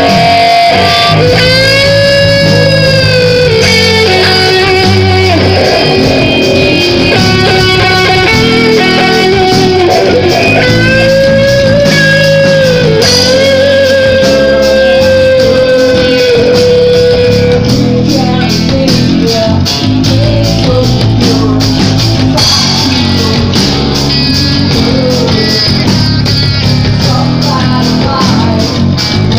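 Band music with guitar: long held melody notes that bend up and down over a steady accompaniment.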